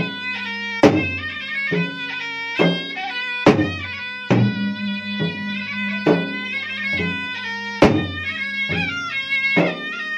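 Bugis-Makassar gendang ensemble: two double-headed gendang drums, one beaten with a stick and hand and one with bare hands, keep a steady beat with a strong stroke a little faster than once a second and lighter strokes between. Over them a reedy pui-pui pipe plays a continuous, wavering melody.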